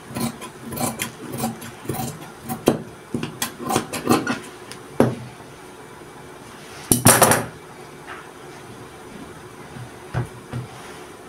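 Large dressmaker's shears snipping through printed shirt fabric on a wooden table, two or three sharp clicks a second, stopping about five seconds in. About seven seconds in comes one short, louder clatter as the metal shears are set down on the wooden tabletop.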